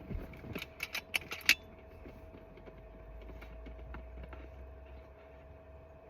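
A quick series of sharp mechanical clicks, the loudest about a second and a half in, from handling and working the action of an FX Impact PCP air rifle while it is readied for another shot. A faint steady hum follows.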